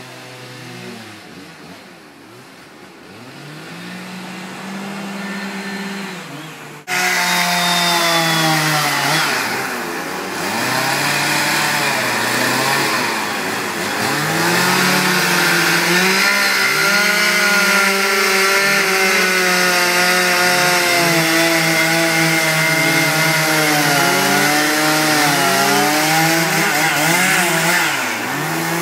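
Chainsaw engine running as it carves wood, its pitch rising and falling as the throttle opens and eases off. It is quieter at first, then suddenly much louder about seven seconds in.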